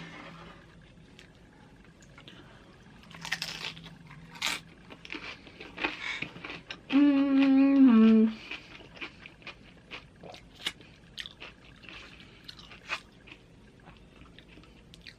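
Close-up chewing of crunchy tortilla chips, with many short crunches and clicks. About halfway through, a loud drawn-out sound from the throat with a clear pitch lasts just over a second, its pitch dropping at the end.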